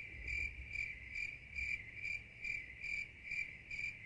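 A cricket chirping steadily, about two even chirps a second, with a low rumble underneath.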